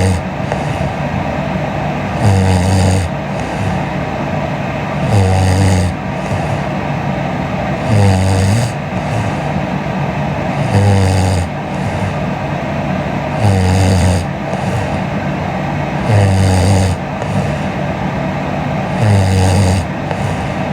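A young woman snoring in her sleep: a low, rasping snore under a second long, repeating regularly about every three seconds.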